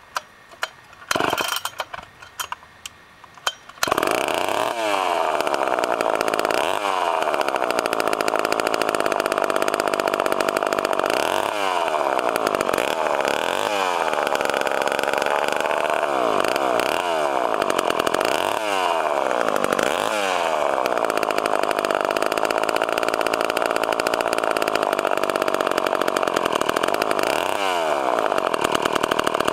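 Rebuilt Poulan 306 two-stroke chainsaw engine starting: a few brief bursts, then it catches about four seconds in and keeps running, revved up and back down again and again by the throttle. It is burning off assembly oil, with the low-speed mixture set too rich.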